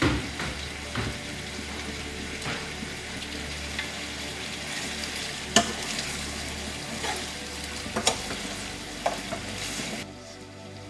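Browned chicken pieces and tomato paste sizzling in a frying pan while being stirred with a spatula: a steady sizzle broken by knocks and scrapes of the spatula against the pan, the sharpest about halfway through. The sizzle drops away near the end.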